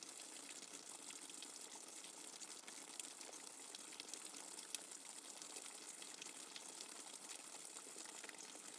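Rainwater dripping fast and hard: a steady hiss of water with many quick, irregular drips ticking through it.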